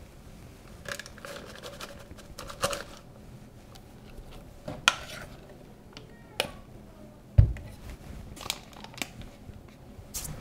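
Silicone spatula scraping thick vanilla custard from a stainless-steel saucepan into a plastic piping bag standing in a glass: a string of scattered scrapes, taps and soft knocks, with one heavier thump about seven seconds in.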